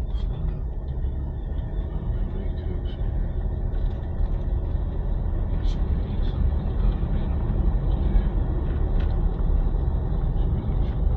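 A vehicle driving, with a steady low rumble of engine and road noise.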